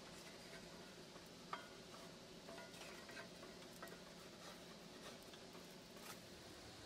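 Faint scrapes and light taps of a spoon and wooden spatula against a cast-iron skillet as pancake batter is scooped in and spread, over a faint steady hiss.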